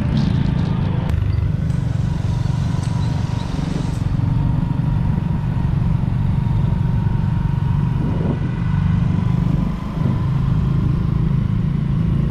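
Motorcycles riding along at a steady cruise, their engines running under a heavy, steady low rumble of wind on a moving microphone.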